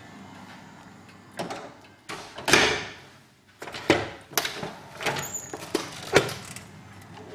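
Commercial door being opened and let swing shut under its Global hydraulic door closer: a run of knocks and clicks from the hardware and latch, the loudest about two and a half seconds in and a sharp latch click about six seconds in, with a brief high squeak just before it.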